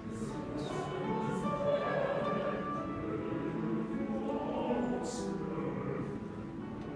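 A mixed choir singing a cappella in several parts, holding sustained chords.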